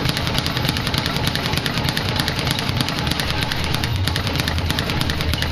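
Speed bag being punched nonstop, rebounding off its platform in a fast, even rattle of many hits a second.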